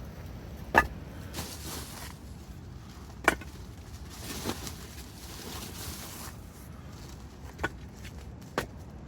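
A handful of sharp knocks at uneven intervals, each with a brief ring, over a steady low outdoor rumble.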